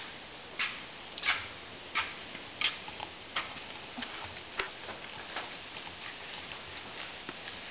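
Fillet knife working through a fish on a cleaning board: a run of short scraping clicks, each a single stroke, about every two-thirds of a second, growing fainter and sparser after about five seconds.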